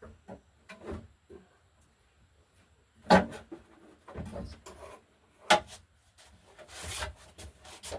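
Handling noises: a few sharp knocks and clunks, and a short scraping rub near the end.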